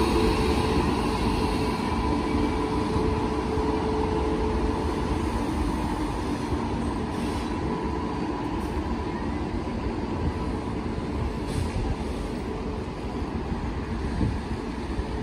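Electric-locomotive-hauled passenger train rolling along the station track, giving a steady low rumble of wheels on rail. A whine from the locomotive fades out over the first few seconds, and the rumble slowly grows quieter.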